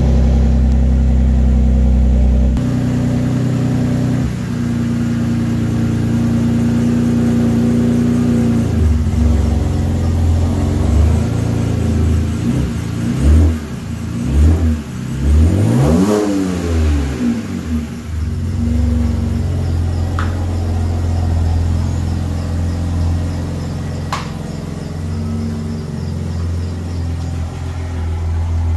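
BMW E90 3 Series engine idling just after a push-button start, then the car pulling slowly out of the garage, its engine note rising and falling as it moves off. Two faint clicks come near the end.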